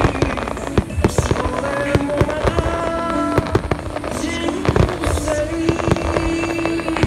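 Aerial firework shells bursting in quick irregular succession, a rapid run of bangs and crackles, with music playing throughout.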